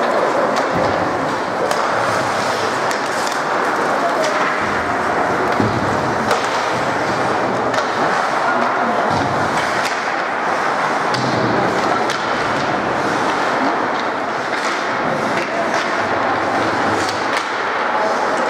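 Ice hockey game sounds: skate blades scraping and carving on the ice, with scattered sharp clacks of sticks and puck, over a steady arena din.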